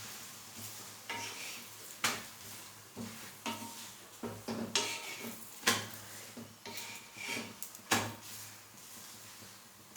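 A metal utensil clattering and scraping against a pan: a string of irregular knocks and clinks, the sharpest about two, six and eight seconds in.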